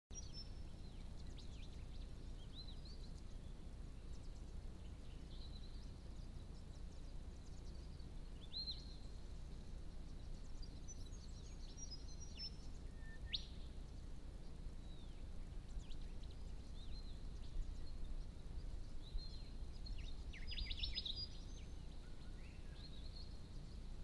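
Small birds giving scattered short chirps and calls over a steady low background noise. There is a sharp rising note about halfway through and a quick run of notes near the end.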